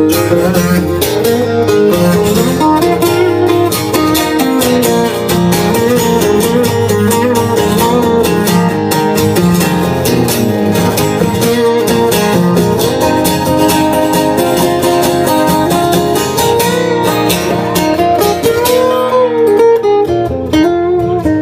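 Two guitars playing an instrumental passage of a rock song live, steady strummed chords with a melody line moving above them.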